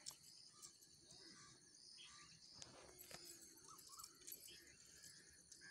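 Near silence: faint outdoor ambience with a steady high insect hum, short chirps repeating about twice a second, and a few faint bird calls.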